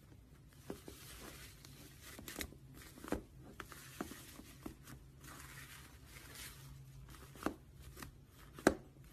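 Slime being handled close to the microphone: soft crackling with scattered sharp pops and clicks, the loudest pop near the end.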